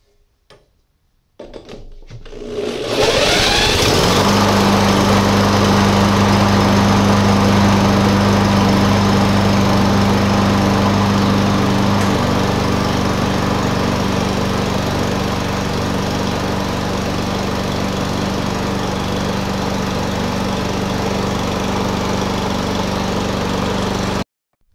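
A push mower's 139cc engine is flash-started with fuel primed into its newly fitted carburetor. It catches about a second and a half in, revs up over the next couple of seconds and then runs steadily. It cuts out suddenly near the end.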